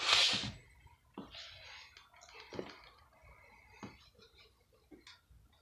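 Handling noise from plush stuffed animals and plastic action figures being moved about. A short, loud rustle comes at the start, then rustling and four light knocks, spaced about a second apart, as figures are set down on a surface.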